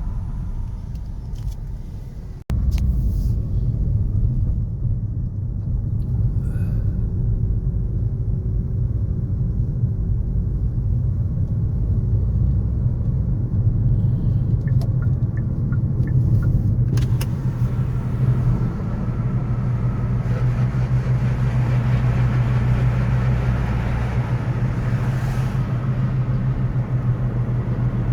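City road traffic: a steady low rumble of passing cars and engines, with a momentary drop to near silence about two and a half seconds in. Past the middle, the hiss of tyres grows as traffic comes closer.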